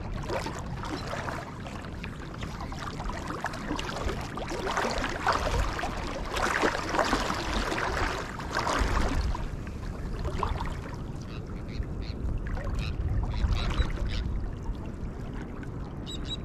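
Shallow water sloshing and gurgling around wading legs, in irregular surges, with wind buffeting the microphone as a steady low rumble.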